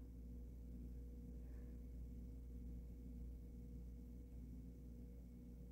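Near silence: faint room tone with a steady low electrical hum.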